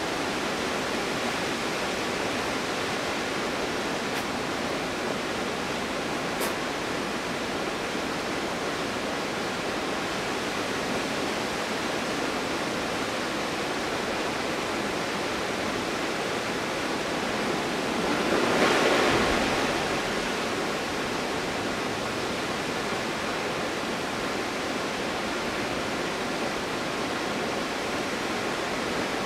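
Stuibenfall waterfall in winter, falling water rushing steadily. About two-thirds of the way through it swells louder for a couple of seconds, then settles back.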